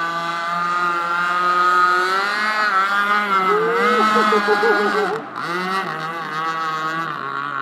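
Gas-powered RC boat's small two-stroke engine running on the water. Its pitch wavers up and down as the throttle changes and dips briefly about five seconds in.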